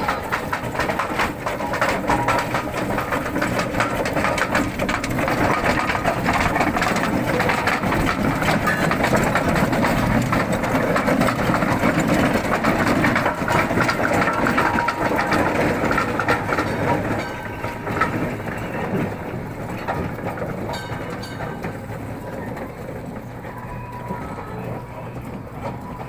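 1904 Aveling & Porter R6-type steam road roller on the move over cobbles: a dense mechanical clatter of its engine and gearing with the iron rolls rumbling on the stones. It grows quieter from about two-thirds of the way in as it moves away.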